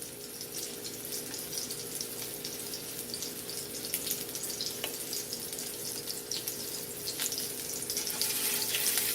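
Ground chicken meatballs searing in hot olive oil in a non-stick skillet: a steady sizzle with scattered pops and crackles, getting a little louder near the end.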